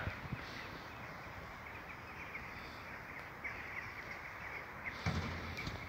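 Faint outdoor background noise with a few faint bird chirps; a low hum comes in near the end.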